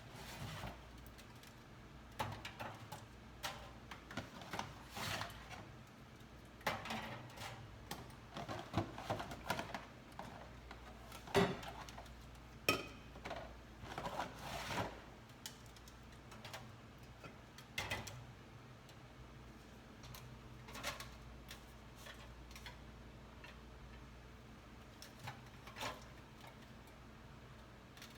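Plastic fridge containers and food being handled and set down: irregular light clicks and knocks, busier in the first half, over a low steady hum.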